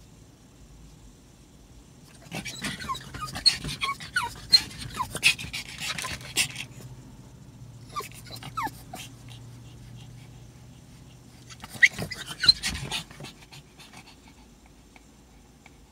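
A dog whimpering and whining in short high squeaks, mixed with panting. It comes in three spells: a long one starting about two seconds in, a brief one about eight seconds in, and another about twelve seconds in.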